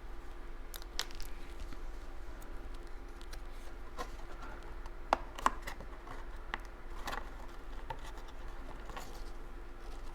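Hands handling cardstock: soft rustles and scratches with scattered light clicks and ticks, the sharpest two about five and a half seconds in.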